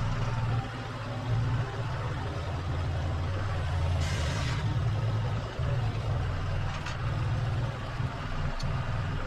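Tractor engine running, its level rising and falling, with a brief hiss about four seconds in.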